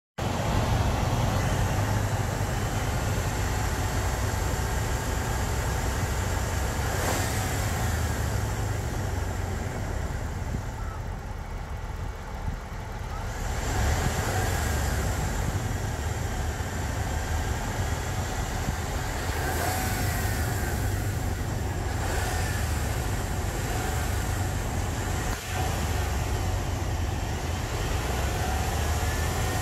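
2008 Dodge Ram's 5.7-litre Hemi V8 gasoline engine running steadily at idle, heard with the hood open, a little quieter for a few seconds around the middle.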